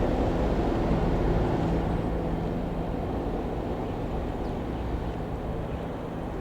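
Light aircraft's piston engine droning as the plane flies past, its sound slowly fading.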